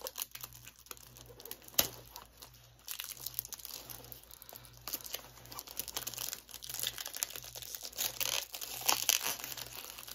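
Plastic wrapping on a DVD box set being torn and crinkled: a steady run of small crackles, with one sharper click a little under two seconds in and busier crackling from about three seconds on.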